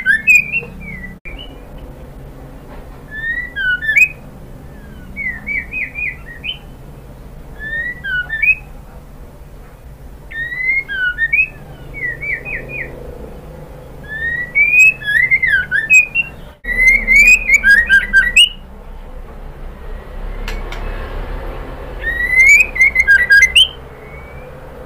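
Female white-rumped shama calling to a male: short bouts of quick rising and falling whistles mixed with sharp high notes, repeated every couple of seconds, with a longer pause near the end.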